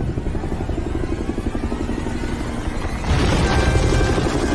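Helicopter rotor chopping rapidly, heard from inside the cabin. About three seconds in, a louder, rougher rumbling noise comes in over it.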